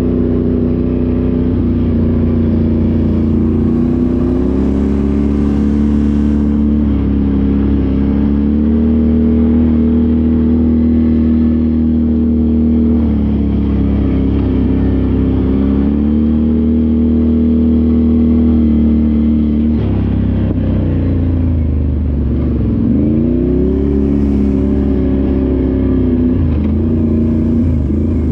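Can-Am 1000cc off-road vehicle's engine running under throttle, its pitch holding for long stretches and then falling and rising several times near the end as the throttle is let off and opened again.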